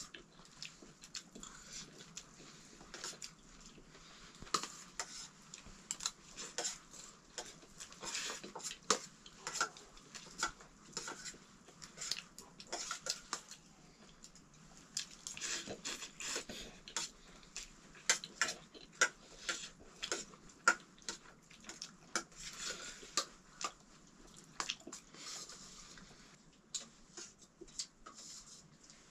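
Metal dishes and utensils clinking and scraping in many irregular light taps.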